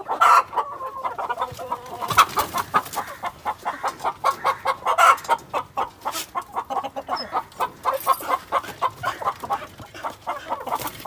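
Chickens clucking in a fast, continuous run of short notes.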